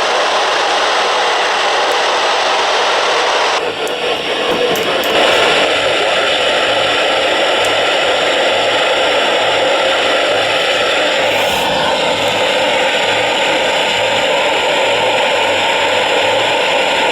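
Weather radio receiver giving out loud, steady static hiss, typical of weak reception on the weather band. The hiss shifts in tone about three and a half seconds in, with a few faint clicks.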